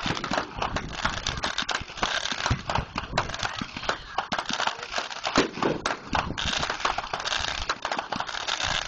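Fireworks display: a dense, continuous run of pops and crackles from bursting aerial shells and crackling stars, with one louder bang about five seconds in.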